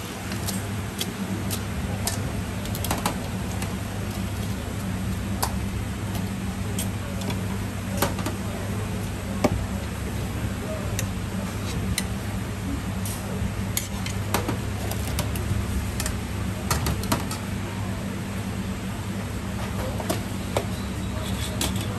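Noodle-stall kitchen sounds: a steady low hum from the cooking equipment, with scattered sharp clinks and knocks of metal noodle strainers and utensils against the steel noodle cooker and bowls.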